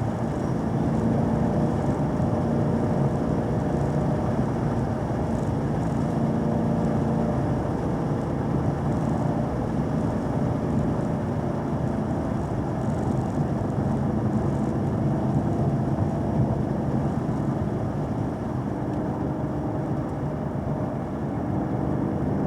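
Vehicle engine running steadily under way, with tyre and road noise, recorded on board during a drive; the engine note eases slightly a little before the end.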